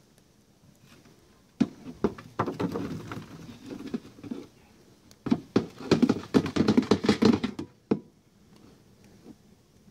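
Boiled potatoes, corn and sausage tipped from an aluminum strainer basket into a plastic ice chest. The food knocks and clatters against the cooler and the basket, first in a scattered run, then in a denser stretch of rattling as the basket is shaken out.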